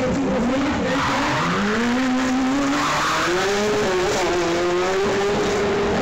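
Shortcar racing car's engine revving hard under throttle, its pitch rising and falling as it drives the course, with bursts of tyre squeal about a second and three seconds in.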